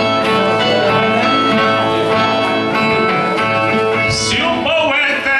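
Brazilian viola, a steel-strung folk guitar, playing a repeated plucked and strummed accompaniment. A singing voice comes in with a long wavering note near the end.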